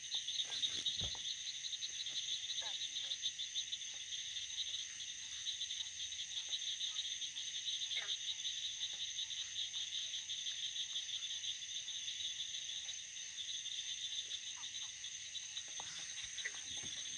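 Night chorus of insects: a steady, rapidly pulsing high trill with a thinner continuous buzz above it.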